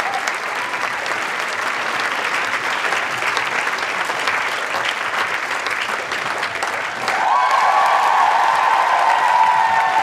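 Large crowd applauding, a dense rattle of many hands clapping. About seven seconds in it swells louder as a held cheer from many voices rises over the clapping.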